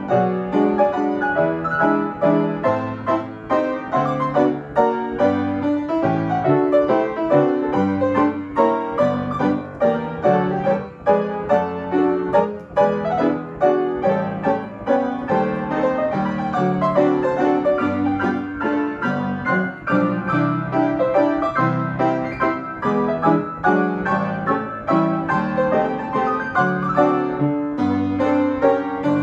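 Player piano playing a waltz from a QRS piano roll: continuous music with many notes sounding together and a steady flow of new notes.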